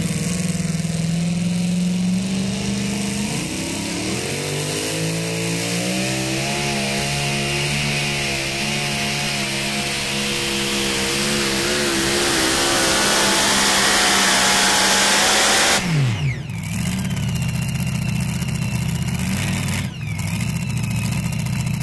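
Super Mod two-wheel-drive pulling truck making a full-throttle pull: the engine runs steady, then its revs waver and climb for about twelve seconds as it gets louder. About sixteen seconds in the pitch drops sharply as the engine is shut off, leaving a steadier, lower engine sound.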